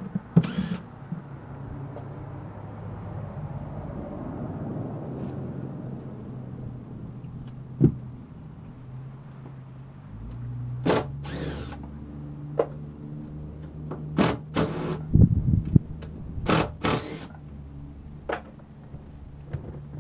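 Scattered knocks and clicks with a few short scraping rasps from panels and screws being worked off a wooden subwoofer enclosure, over a steady low hum.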